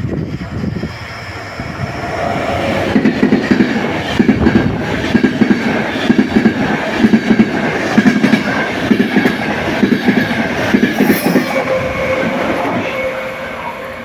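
Train passing through a station, its wheels clacking over rail joints about once a second over a steady rumble, with a faint steady whine; it builds about two seconds in and fades near the end.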